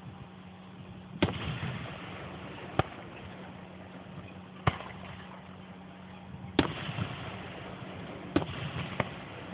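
Aerial fireworks shells bursting: six sharp bangs spaced a second or two apart, several followed by a brief crackle. A steady low hum runs underneath.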